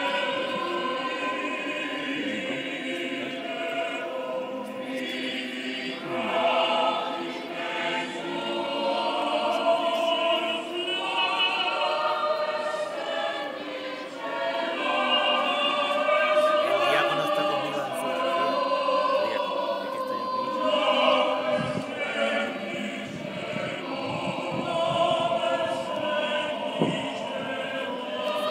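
Choir singing the offertory chant of a Mass, several voices holding notes together in harmony.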